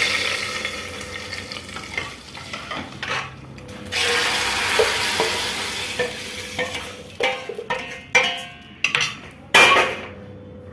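Hot oil tadka of browned garlic and onion sizzling as it hits the cooked masoor dal, fading over the first second or so. Sizzling again about four seconds in as dal is ladled into the hot frying pan, then a steel ladle clinking and scraping against the pan and pressure cooker.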